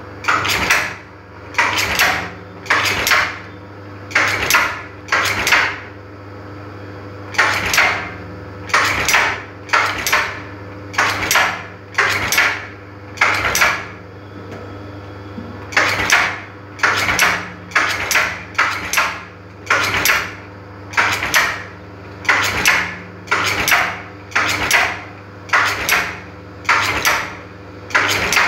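Brush tufting machine punching bristle tufts into a wooden brush block: a regular run of sharp metallic clacks, about one to two a second, over a steady low motor hum. The clacking stops twice briefly, for about a second and a half each time.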